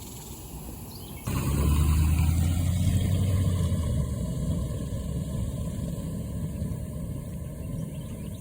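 A vehicle engine running with a low steady hum, starting abruptly about a second in and easing off gradually.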